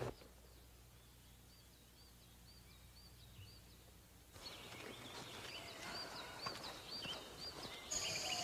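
Faint outdoor ambience with a small bird repeating a short chirp about twice a second. A little past halfway the background hiss grows louder. Near the end a high, steady insect buzz sets in.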